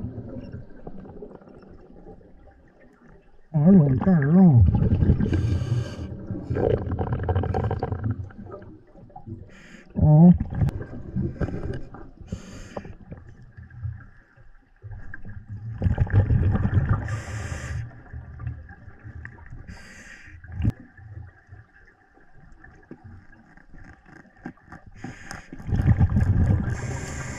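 Muffled underwater gurgling and bubbling in several bursts, with wavering, gliding tones over a low murky rumble.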